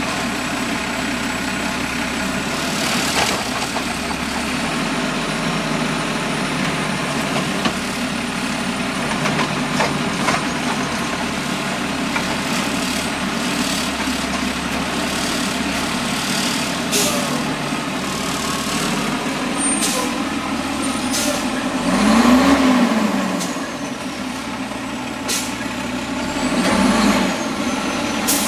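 Automated side-loader garbage truck working at the curb: its diesel engine runs steadily, with a few short sharp air hisses. The engine revs up and back down about two-thirds of the way in, and again more briefly near the end.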